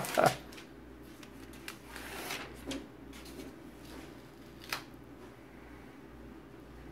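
Faint handling noises: soft rustling and a few light clicks, the sharpest about two-thirds of the way through, over a low steady hum.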